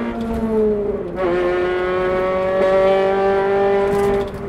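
Honda Civic Type R (FD2) four-cylinder VTEC engine and exhaust under way, echoing in a road tunnel. The pitch eases down, then there is a quick gear change about a second in. After it the engine pulls louder with slowly rising revs and drops off just before the end.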